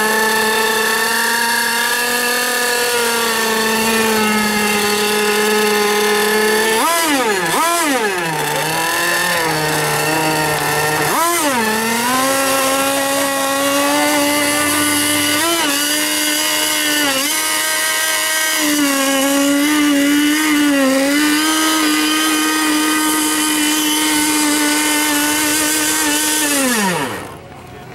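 A radio-controlled model race boat's small two-stroke engine running with the boat held out of the water. It buzzes steadily and is blipped up and down in pitch about seven and eleven seconds in, then runs steadily at a higher pitch. Near the end it winds down with a falling pitch and cuts out.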